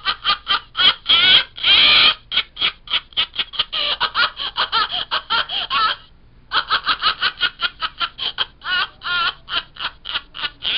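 A high-pitched laughter sound effect playing from the speaker of a novelty electronic telemarketer-repellent sound machine, in rapid short bursts of laughing. It breaks off about six seconds in, then starts again.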